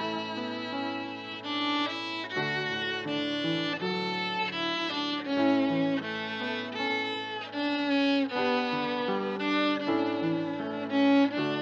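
Background music: a bowed violin playing a melody, with lower notes sounding beneath it.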